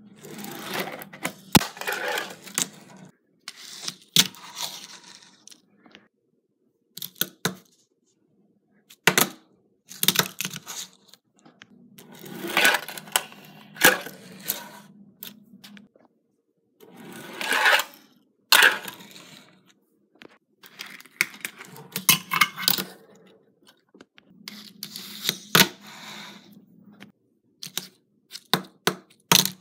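Tech Deck fingerboard's small wheels rolling over a tabletop and plastic ramps, with sharp clacks as the board pops and lands. The rolling comes in runs of a second or two, separated by short pauses.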